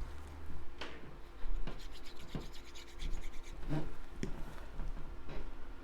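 Cardstock card pieces being handled and rubbed against each other and the work surface: irregular light scrapes and taps.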